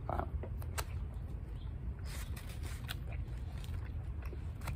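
Plastic fork scraping and clicking in a styrofoam takeout container as French toast is cut, with chewing, over a steady low rumble.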